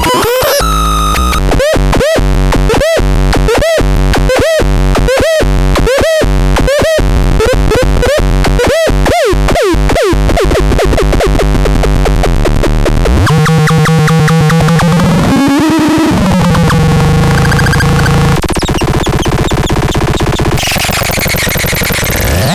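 Harsh electronic synthesizer noise. For about the first ten seconds a pitched chirp repeats roughly every 0.8 s, speeding up toward the end of that stretch; then a low buzzing drone with warbling tones sets in, and sweeping pitch glides come near the end.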